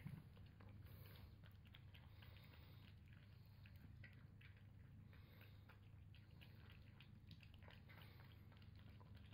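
Two cats eating wet food from white dishes: faint chewing and licking clicks, many small ones, over a steady low hum.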